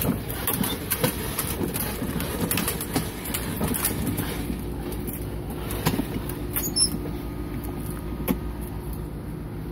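Scattered clicks and knocks from a plastic toy ride-on Jeep being handled, over a steady low hum.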